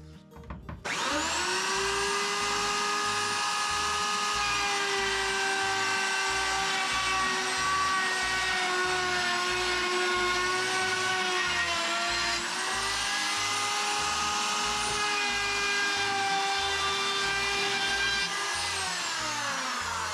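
Handheld plunge router cutting a 3/8-inch groove in plywood siding sheathing. It spins up with a rising whine about a second in, then runs at a steady high whine under cut. Its pitch sags briefly about twelve seconds in, and it winds down with a falling pitch near the end.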